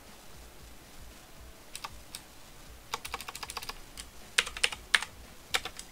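Typing on a computer keyboard: keystrokes in short, uneven bursts, starting a little under two seconds in.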